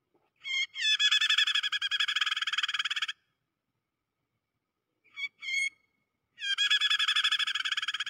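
Lure recording of a prinia (prenjak) giving the harsh, rapid buzzing chatter of a trapped bird in distress: one long burst of about three seconds, two short notes, then a second long burst near the end.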